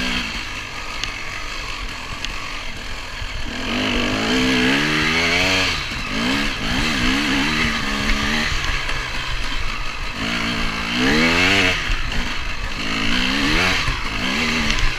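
KTM 250 EXC dirt bike engine revving up and dropping back in about four surges as the rider accelerates and backs off along the track, heard close from the bike-mounted camera over a steady rush of wind and road noise.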